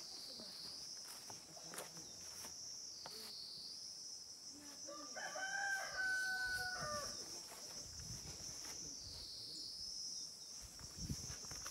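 A rooster crowing once, a single call of about two seconds around the middle, over a steady high insect drone that dips in pitch every couple of seconds.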